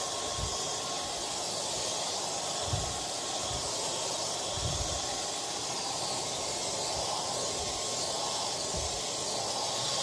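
Handheld hair dryer blowing steadily: a constant airy hiss with a faint steady whine. A few soft low thumps come through about three, five and nine seconds in.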